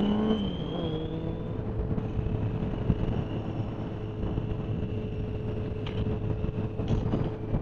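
Motorcycle engine rising in revs and then falling back just after the start, then running steadily, with heavy wind rumble on the microphone and a thin steady high whistle over it.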